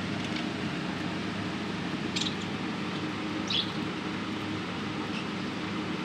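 Budgerigars giving a few short, high chirps, two clearer ones near the middle, over a steady low hum.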